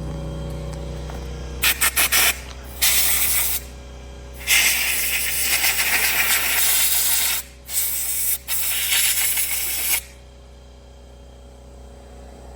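Spray hissing in bursts while a Subaru EA190V carburetor's gummed-up parts are cleaned. There are a few quick puffs about two seconds in, then several longer blasts, the longest about three seconds, which stop about ten seconds in.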